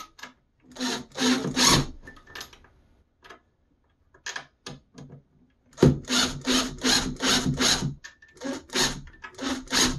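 Makita cordless impact driver driving a long screw through a metal bracket into the wooden side of a cabinet, run in a series of short bursts, with a run of quick, evenly spaced pulses about halfway through.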